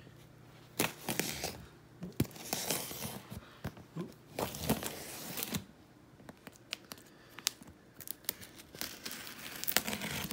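A cardboard shipping case being cut and torn open with a small knife: packing tape and clear plastic stretch wrap tearing and crinkling in short irregular bursts, with scattered sharp clicks between.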